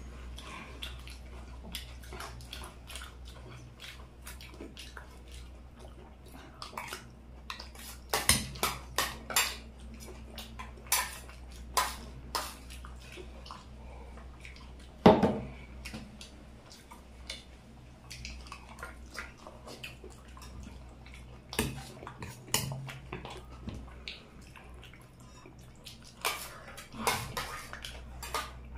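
A metal spoon clinking and scraping against a dish during eating, in scattered clusters of sharp clicks, the loudest about halfway through. A low steady hum runs underneath.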